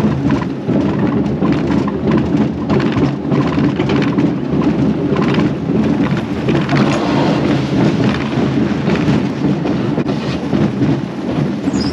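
Kiddie roller coaster train (the Crazy Caterpillar) running on its track, heard from on board: a steady low rumble with irregular rattling and clattering from the wheels and cars.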